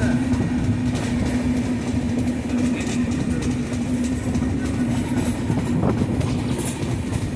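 A moving train running, heard as a steady rumble with a constant low hum throughout.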